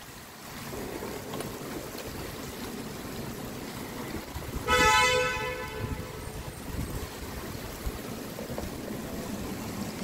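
A car horn sounds once, a single steady note lasting about a second about halfway through, over a steady rushing background of wind and rain.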